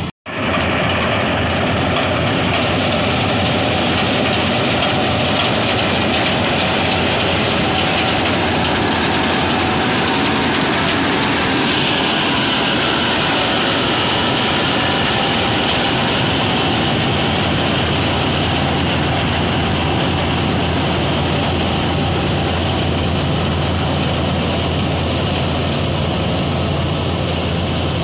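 Combine harvester at work cutting rice, its engine and machinery making a steady, loud mechanical din.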